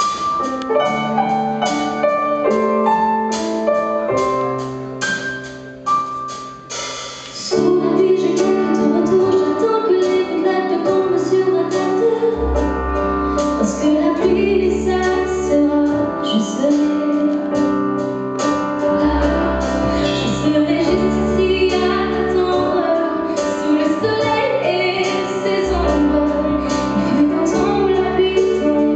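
Live pop song from a band with a female lead singer. Keyboard chords open quietly, and about seven seconds in the music gets louder, with the woman singing over keyboard and electric guitar. Low bass notes come in around twelve seconds.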